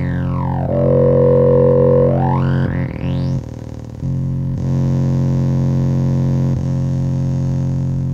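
Eurorack modular synthesizer playing a buzzy, distorted low drone. Over it a tone glides down in pitch, holds about a second, then sweeps back up high before cutting out, and the drone's texture changes abruptly twice later on.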